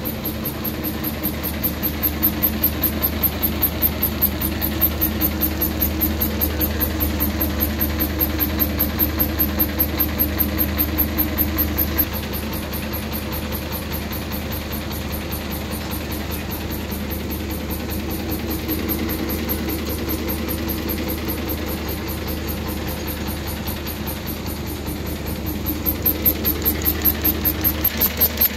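416B fabric pleating machine running: a steady mechanical hum with a regular knocking of about four beats a second. The knocking stops about twelve seconds in and comes back near the end, while the hum carries on.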